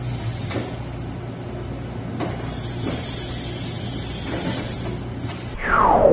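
Haas VF-2SS CNC vertical mill running with a steady low hum and a few knocks, with a high hiss for about three seconds in the middle. Near the end the loudest sound comes in: a whine falling steeply in pitch, the spindle winding down.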